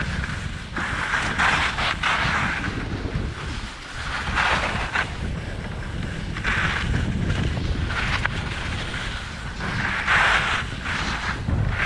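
Wind rumbling on the microphone during a fast downhill ski run, with a hissing scrape of ski edges on packed snow that swells on each turn, about every two to three seconds.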